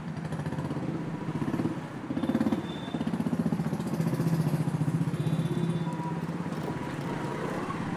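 Small vehicle engine running with a fast, even putter amid street traffic, swelling a little about two seconds in.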